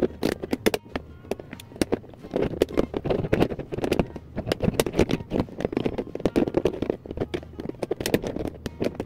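Scissors cutting through a thin, brittle plastic storage bin: a rapid, irregular run of sharp snaps and crackles as the blades bite and the plastic cracks.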